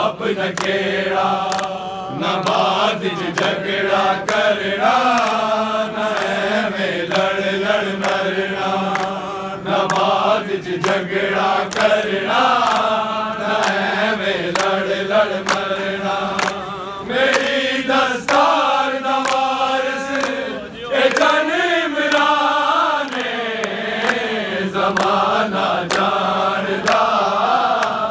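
A crowd of men chanting a devotional song together, many voices at once, over a steady beat of hand-claps.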